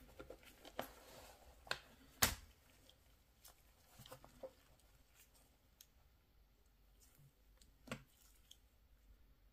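Scattered small clicks and taps of a Mercedes-Benz key fob's plastic housing being handled, the loudest a sharp snap a little over two seconds in and another about eight seconds in.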